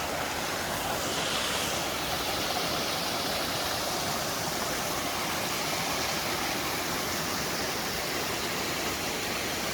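Small stream rushing steadily: a constant, even sound of running water.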